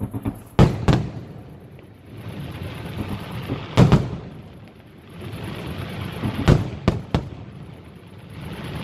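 Aerial firework shells bursting: sharp booms twice close together about half a second in, again near four seconds, and three more around six and a half to seven seconds, with a hiss from the burning stars swelling between the booms.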